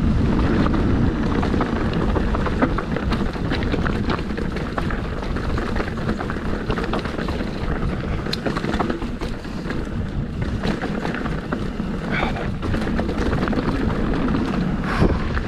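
Mountain bike rolling fast down a rocky dirt singletrack: steady tyre noise on loose rock and dirt with many small rattles and clicks from the bike, and wind buffeting the microphone.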